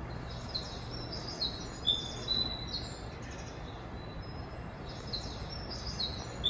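Electronic bird chirps from a station guidance speaker, the sound played at Japanese stations to mark stairs for blind passengers. A quick run of high chirps steps downward in pitch, then the same run repeats about five seconds in, over a steady low hum.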